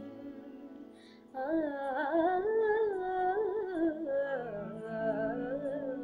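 A girl's solo singing voice in a wordless melodic passage of a Sanskrit devotional song, the pitch gliding and ornamented. It comes in about a second in, after a faint fading held note.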